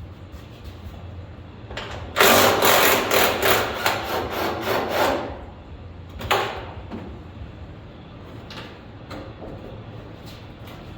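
A handheld power tool runs in a loud, rapid rattling burst of about three seconds starting two seconds in, then fires again briefly a second later, over a steady low hum.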